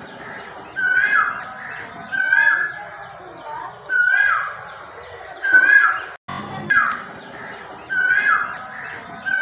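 A bird calling over and over, each call a clear whistle that drops in pitch, about once every second and a half.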